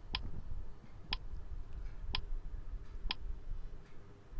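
Countdown timer ticking sound effect: four sharp ticks, one a second.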